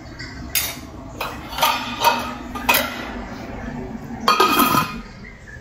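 Steel spoon clinking against a metal cooking pan several times, then a glass lid set down on the pan with a louder knock and brief ringing about four seconds in.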